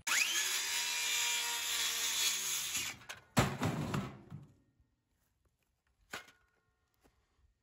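Electric power saw starting with a rising whine and running for about three seconds. A sharp crack follows, then a second short run that dies away.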